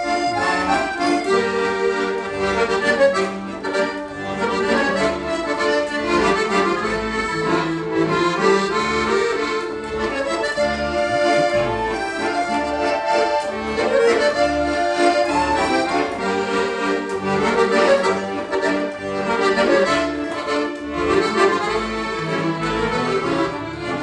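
Several piano accordions, among them a Paolo Soprani and an Excelsior, playing a tune together in held chords over a bass line, without a break.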